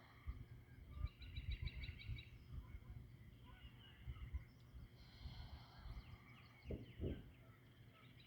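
Faint birds chirping and trilling in the open, with two short honks about seven seconds in and an uneven low rumble throughout.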